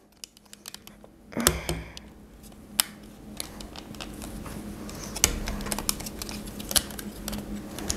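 Light plastic clicks and small snaps from a Transformers Studio Series 72 Starscream action figure's joints and parts as it is worked through its transformation by hand, starting about a second and a half in and coming at irregular intervals.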